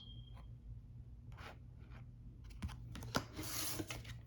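Tarot cards being handled: a few light clicks and taps of card stock, with a brief papery slide or rustle about three and a half seconds in.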